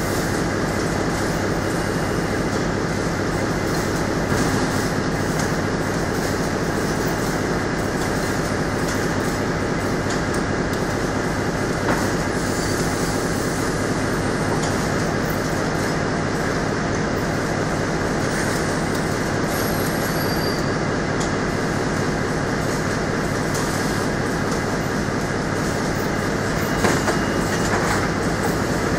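Corrugated-box production line running: flexo folder gluer, roller conveyors and palletizer giving a steady, fast mechanical clatter, with an occasional louder knock.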